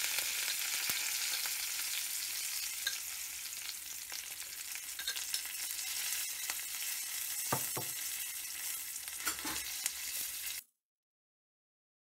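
Hot sesame oil sizzling steadily in a stainless steel pan as the tempering and freshly added sambar powder fry, with a couple of brief knocks about two-thirds of the way through. The sound then cuts off abruptly into dead silence.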